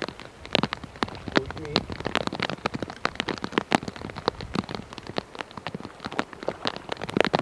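Rain falling, with many close raindrops striking in dense, irregular ticks over a faint hiss.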